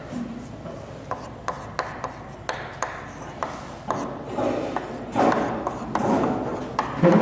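Chalk writing on a chalkboard: a run of short sharp taps and scratching strokes.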